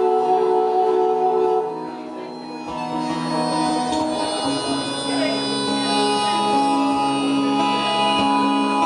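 Acoustic guitar played through effects pedals, making layered, droning, held notes. It drops quieter just under two seconds in, then builds back up with new sustained notes.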